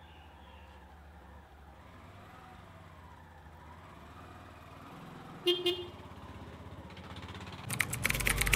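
A vehicle horn toots twice in quick succession over a faint steady low hum. Near the end a louder low engine rumble comes in.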